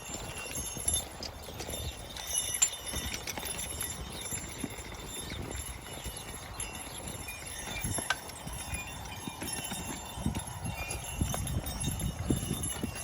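Hoofbeats of Belgian draft horses walking in a team, an uneven run of dull thuds and knocks as they pull a plough.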